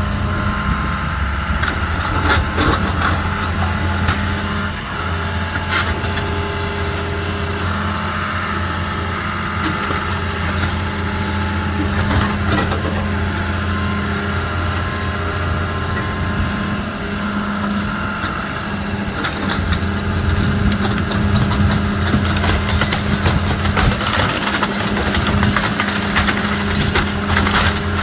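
A heavy machine's diesel engine running steadily during a house demolition, with scattered knocks and crunches of breaking debris that come thicker over the last third.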